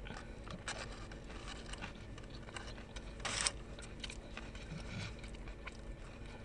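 Chewing a bite of a crispy fried chicken biscuit sandwich, with small crackles and a brief louder rustle a little past three seconds in.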